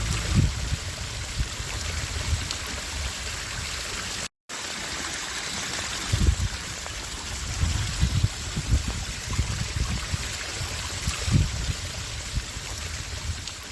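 Heavy rain downpour: a steady, dense rushing hiss, with irregular low thumps and rumbles. The sound drops out for a moment about four seconds in, where the video cuts.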